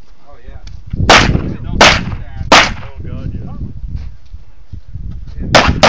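Pistol shots at a practical-shooting course of fire: three shots about three-quarters of a second apart, a pause of about three seconds, then two more in quick succession near the end.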